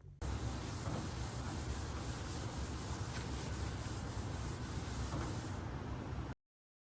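Block sanding body filler on a thin sheet-metal trunk filler panel: a steady, even rubbing scrape that cuts off abruptly about six seconds in.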